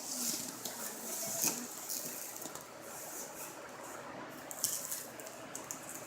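Rustling and crinkling of packaging and wrapping being handled and pulled open, in irregular bursts.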